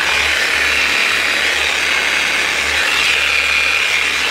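Hilti TE 905 electric demolition hammer switched on and running steadily at full speed, staying on rather than cutting out, with its broken speed pickup ring replaced.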